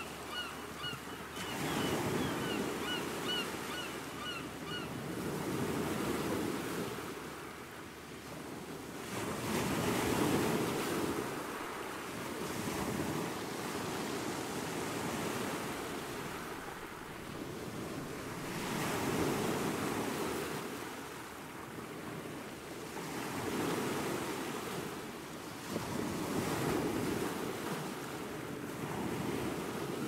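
Gentle surf breaking on a sandy beach, the wash swelling and easing about every four seconds. A quick series of short high chirps sounds over it for the first few seconds.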